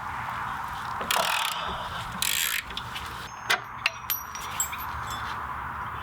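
Hand ratchet wrench working on bolts: two short rasping ratchet spins, then several sharp metallic clinks with a brief ringing, while the rear shock absorber and spring-plate screws of a VW Beetle rear axle are being undone.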